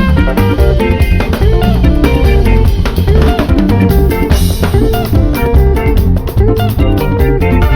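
Ghanaian highlife music: a drum kit plays a busy groove over a band track with guitar lines.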